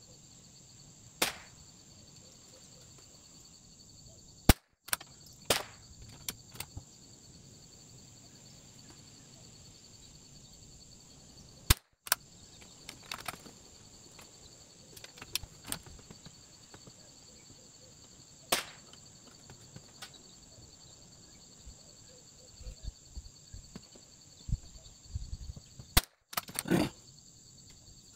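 Three sharp .22LR rifle shots from a bolt-action Bergara BMR on the bench, about four and a half, twelve and twenty-six seconds in, with lighter clicks of the bolt being worked and rounds handled between shots.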